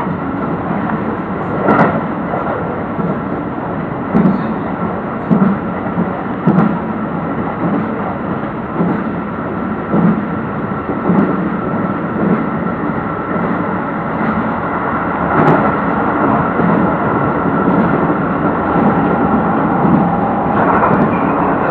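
Keio electric commuter train running at speed, heard from inside the train just behind the driver's cab: a steady rumble of wheels on rail with a faint steady high hum and a soft thud from the rail joints every second or so.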